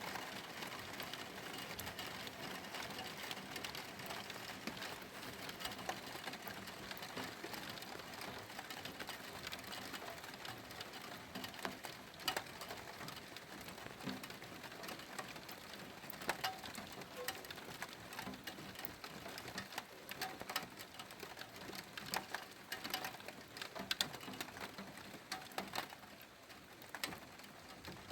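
Steady rain hissing, with irregular sharp ticks of drops striking a surface close by, more of them in the second half.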